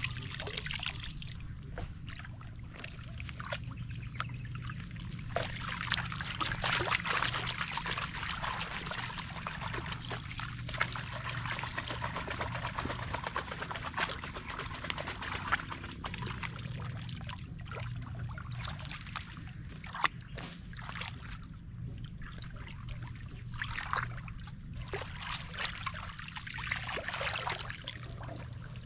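Pond water trickling and splashing as weeds and duckweed are pulled out by hand, with many small splashes and drips throughout. A low steady hum runs underneath.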